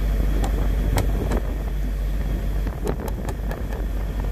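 Steady low engine rumble, with a few light clicks scattered through it.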